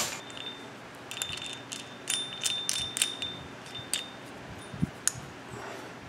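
A string of irregular light metallic clinks and taps, several ringing briefly, as small wooden discs jammed inside a steel hole saw are knocked and pried out of its cup.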